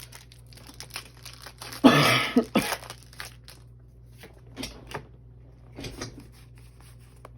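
A foil trading-card booster pack being handled, crinkling and tearing, with scattered small crinkles and clicks. A loud burst of noise comes about two seconds in.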